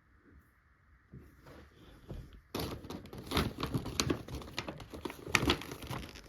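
Gift bag and its packaging crinkling and rustling as items are pushed into it. It starts suddenly about two and a half seconds in and goes on as a dense crackle with sharp clicks.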